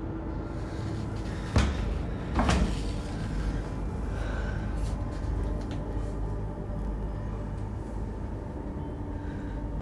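A sharp click about a second and a half in, then a short rattle a moment later, typical of an apartment door's handle and latch being worked, over a steady low rumble.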